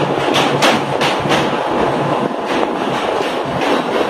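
Mumbai suburban electric local train running, heard from its open doorway: a steady loud rumble with repeated sharp clacks from the wheels and carriages.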